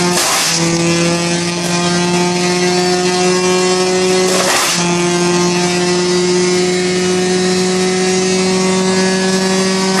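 1974 Wayne wood chipper's engine running steadily, with two short loud bursts of chipping noise about half a second in and about four and a half seconds in as leaves and branches are fed through, the engine note briefly dipping under the load each time.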